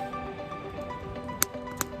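Background music of held notes at changing pitches, with two sharp pops from a crackling wood campfire in the second half.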